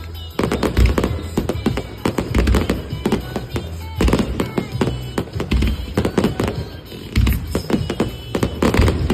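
Fireworks finale: many shells bursting in quick succession, deep booms every second or two mixed with sharper cracks and crackle. Music plays underneath.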